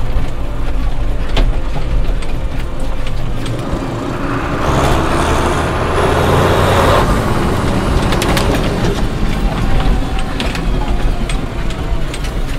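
Case CS 150 tractor's diesel engine running steadily under way, heard from inside the cab with scattered rattles and clicks. From about four and a half seconds in, a loud rushing hiss swells over the engine for around four seconds, then fades.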